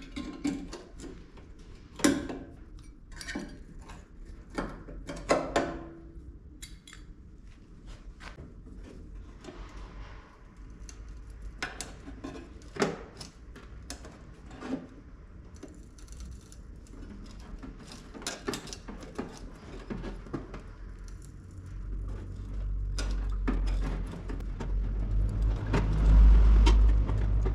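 Scattered metallic clicks, knocks and clatter, as of hand tools and sheet-metal bodywork being worked and handled. A low rumble builds over the last few seconds.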